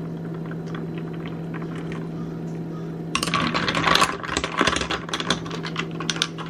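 Sudden heavy rainstorm beating on the house, loud: a steady hiss that turns about three seconds in into a dense clatter of sharp, rapid ticks.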